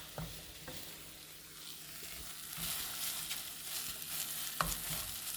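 Spinach and kale sizzling in a cooking pot as they are stirred for efo riro, with a couple of sharp knocks of the spoon; the sizzle gets louder about halfway through.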